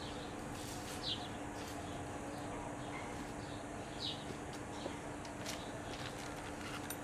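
A few short bird chirps, spaced a second or more apart, over a steady low hum and a faint background hiss.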